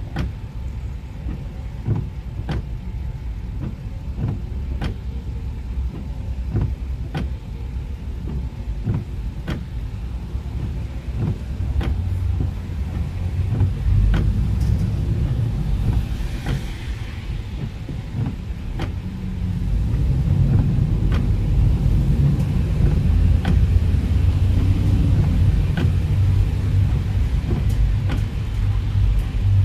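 Car driving on a rain-wet road: a steady low rumble of engine and tyres, with many short sharp ticks scattered throughout. A brief hiss comes about halfway through, and the rumble grows louder about two-thirds of the way in.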